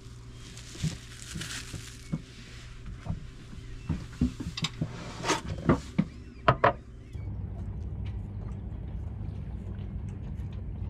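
Breakfast things being handled: a string of knocks and clinks of plates, a mug and a knife on a wooden cutting board, the sharpest ones about five to seven seconds in. About seven seconds in the sound changes abruptly to a steady low motor rumble of the boat under way.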